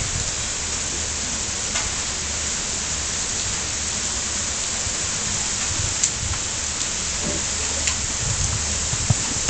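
Heavy rain falling, a steady loud hiss with a few faint taps and a low rumble underneath.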